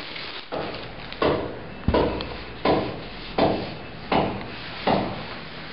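Steady rhythmic knocking, one sharp knock about every three-quarters of a second, each dying away quickly.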